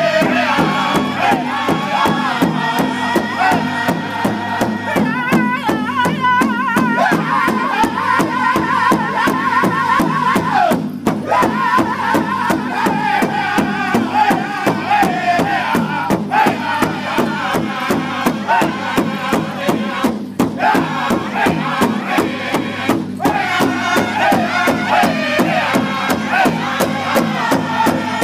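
Powwow drum group performing a contest song: several voices singing together over a steady, even beat struck on one large drum.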